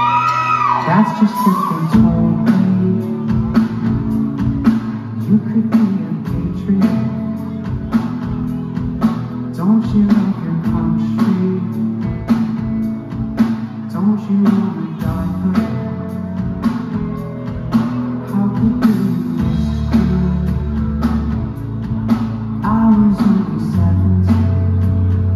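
Rock band playing live through a hall's PA: electric guitars and bass over a steady drum beat.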